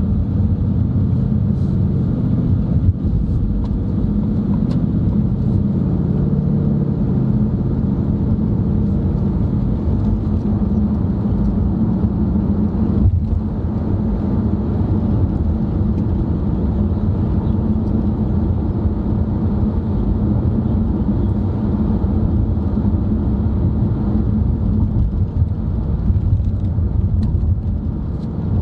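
Steady road and engine noise heard from inside a moving car's cabin: an even low rumble of tyres and engine at cruising speed, with no change in pace.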